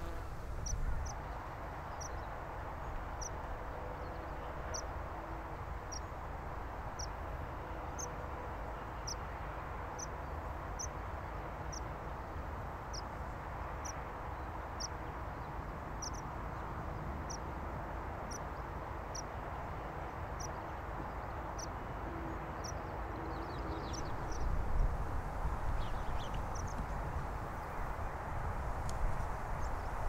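Meadow pipit giving a thin, high call over and over, about once a second, stopping a few seconds before the end. Under it runs a steady hiss and low rumble.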